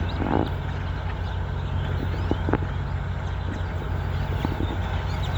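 A semi truck's diesel engine idling steadily, under a flock of birds chirping and calling. A brief rushing gust comes just after the start, and there are a few sharp clicks about two and a half seconds in.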